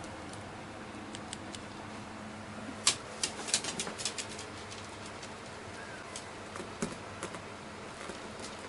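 Light clicking and tapping: a quick cluster of sharp clicks about three seconds in, a few scattered clicks later, and one faint short rising squeak around six seconds.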